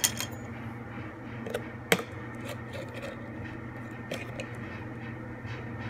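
Kitchen utensils handled on a counter: a plastic measuring spoon is picked up and set against a plastic tub, giving a sharp click about two seconds in and a few softer taps, over a steady low hum.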